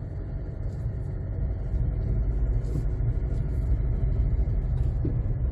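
2007 Jeep Compass on the move: a low engine and road rumble that builds steadily as it picks up speed.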